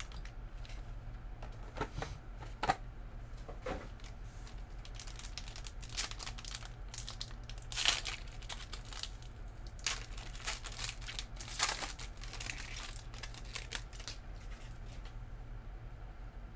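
Foil wrappers of Panini Chronicles basketball card packs crinkling and tearing as packs are handled and ripped open, in scattered crackles with the loudest about halfway and again near the end. A steady low electrical hum sits underneath.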